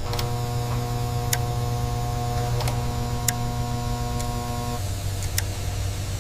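Factory machinery running with a steady hum and several held tones, with a few sharp clicks. About five seconds in, the higher tones drop away and the hum settles a little lower.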